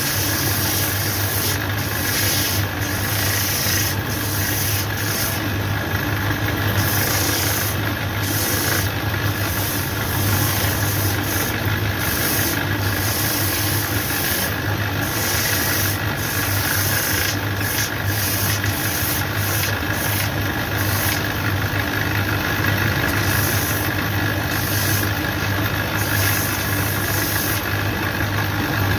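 Shoe repairer's finishing machine running steadily with a low motor hum while a leather sole is sanded on its sanding wheel, the rasping hiss coming and going as the sole is pressed on and lifted off.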